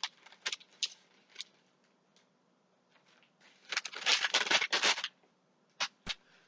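Packaging being handled and opened: scattered crinkles and clicks, then a denser burst of rustling and crinkling a little past halfway, and two sharp clicks near the end.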